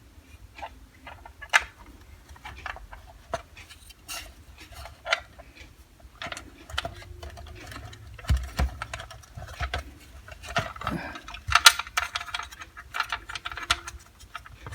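Irregular small clicks, taps and clatter of hard objects being handled: a vintage military multimeter and its test probes being picked up and worked. A few dull thuds come about eight seconds in, and the clicking is busiest and loudest around eleven to twelve seconds in.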